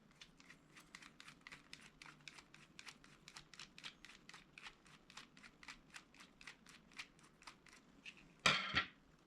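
Rapid, even, light clicking, about five clicks a second, while the Phillips screw inside a spinning reel's handle is backed out. A louder brief rustle comes near the end.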